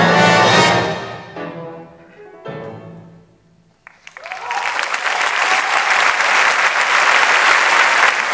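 Symphony orchestra ending a piece: a loud full chord fades out, followed by two softer chords that die away into a brief hush. About four seconds in, audience applause breaks out and carries on steadily.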